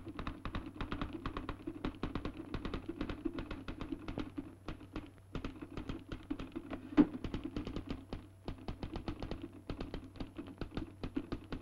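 Manual typewriter being typed on fast, a rapid run of key strikes with a brief pause about five seconds in and one much louder strike about seven seconds in.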